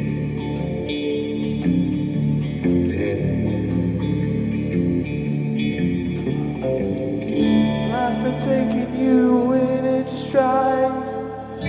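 Small rock band playing live: a Stratocaster-style electric guitar, a bass guitar and a drum kit with regular cymbal strokes. A male voice starts singing about seven and a half seconds in.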